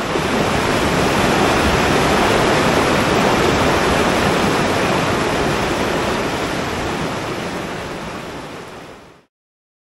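River rapids rushing over rocks: a steady wash of whitewater that swells in, holds, then fades out and stops shortly before the end.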